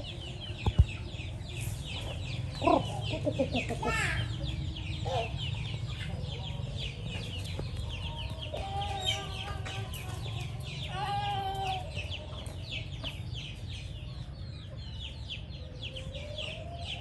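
Chickens clucking and calling, with a few longer drawn-out calls, over a constant chatter of quick high chirps. A couple of sharp clicks come just under a second in.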